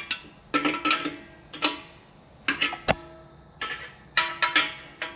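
Steel combination wrench clinking against the compressor's metal fittings as the new check valve is tightened: about ten irregular sharp taps, each ringing briefly at the same pitch.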